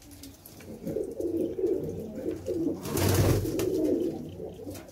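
Domestic pigeons cooing in a small loft, a continuous low murmur, with a brief rustle about three seconds in.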